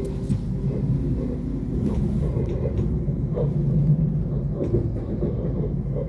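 Lastochka electric train (Siemens Desiro RUS multiple unit) running, heard from inside the passenger car: a steady low rumble with a few faint clicks of the wheels.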